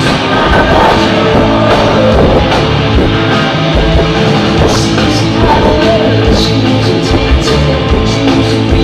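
Live rock band playing loud, with electric guitars, bass and a drum kit, heard from the audience.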